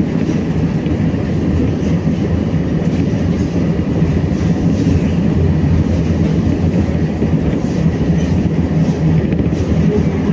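BKM-60102 tram in motion, heard from inside the car: a steady low rumble of the wheels on the rails and the running gear, with no distinct clicks or squeals.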